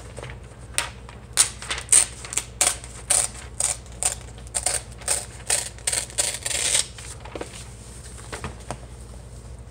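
Glossy magazine page being torn out along the spine in a quick series of short rips and crackles, lasting about six seconds before it stops.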